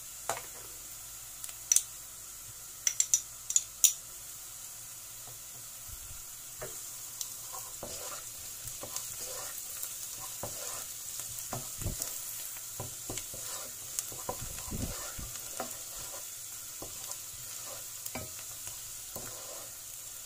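Chopped onion, garlic and ginger sizzling steadily in hot oil in a pot, with a few sharp pops in the first four seconds. From about six seconds in, a wooden spoon stirs and scrapes them around the pot in irregular strokes.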